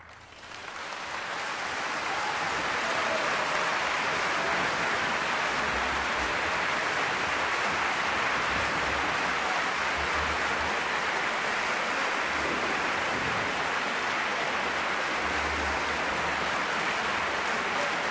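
Large theatre audience breaking into applause, swelling over the first two seconds into steady, dense clapping.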